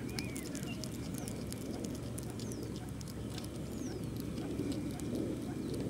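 European hedgehog eating meat from a dish, chewing and smacking noisily in a steady run of short wet clicks. A few faint bird whistles sound in the background.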